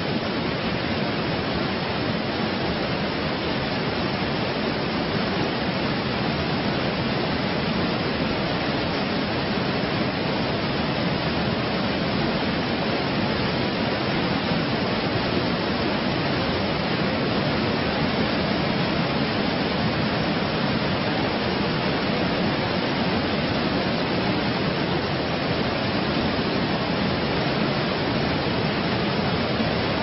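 Waterfall rushing: a steady, unbroken noise of falling water that keeps the same level throughout.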